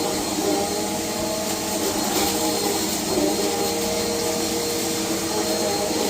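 Vacuum cleaner running steadily: a constant motor hum with a few steady tones over a rush of air.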